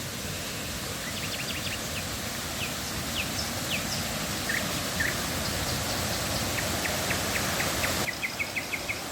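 Steady rush of flowing river water, with birds calling over it: scattered short, falling chirps through the middle and a quick run of repeated notes near the end.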